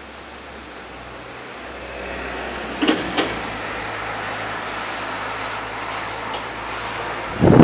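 Gusty wind of a thunderstorm's outflow boundary, rushing noise building about two seconds in, with two short knocks around three seconds in and a gust buffeting the microphone at the very end.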